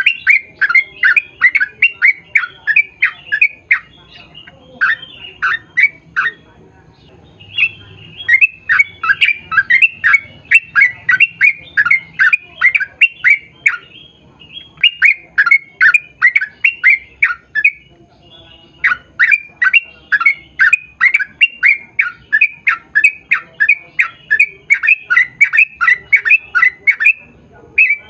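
Yellow-vented bulbul (trucukan) calling in long, rapid runs of loud chattering notes, about four a second, with brief pauses between runs.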